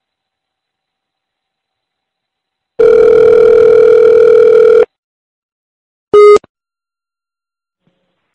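Telephone ringback tone heard down the line: one steady ring about two seconds long, starting about three seconds in, while a call to a payphone waits to be answered. A short beep follows about six seconds in.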